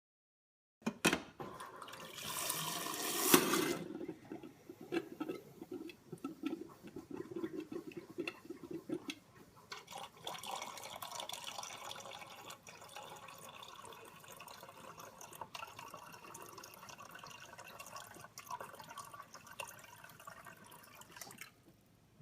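Water running and splashing. It starts about a second in with a loud rush, goes on unevenly and stops shortly before the end.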